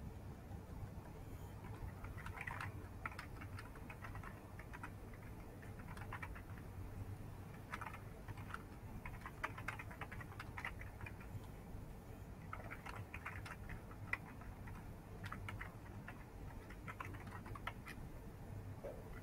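Faint typing on a computer keyboard in short, irregular bursts of clicks, over a low steady hum.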